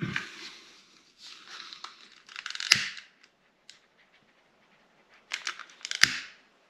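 Small butane torch lighter clicked and hissing in two bursts, each ending in a sharp click, as its flame heats heat-shrink tubing over spliced cable joints.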